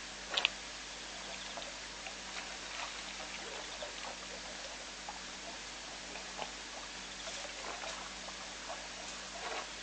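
African elephant browsing in a thorny bush: faint scattered cracks and rustles of twigs and leaves over a steady hiss, with a sharper click about half a second in and a denser patch of crackling near the end.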